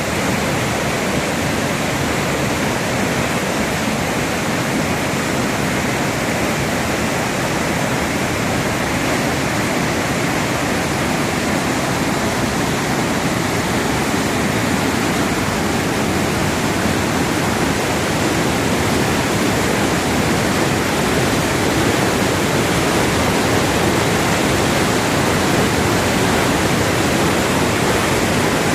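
Waterfall swollen with rain runoff, a loud, steady rush of falling water that grows slightly louder toward the end.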